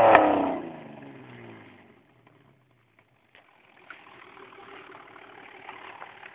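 Holden Commodore VS V6 with extractor headers and a full twin exhaust, its revs falling back from a blip and dying away to a faint idle over about two seconds.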